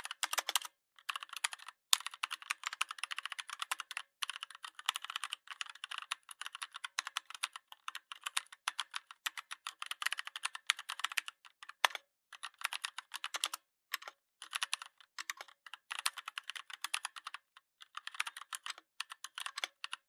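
Rapid, dense clicking like fast typing, broken several times by brief silent gaps.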